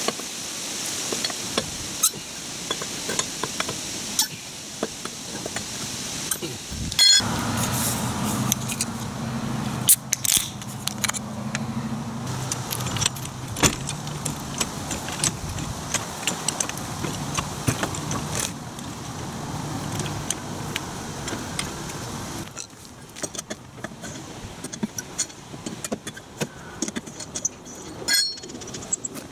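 Metal clinking and rattling of a four-way lug wrench and steel wheel lug nuts, with scattered clicks and knocks. A low, steady vehicle hum runs under it for a stretch in the middle.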